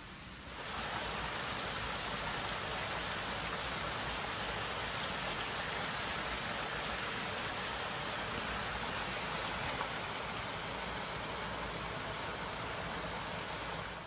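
Forest creek rushing as it spills in a small cascade over fallen logs: a steady, even rush that swells in about half a second in and cuts off suddenly at the end.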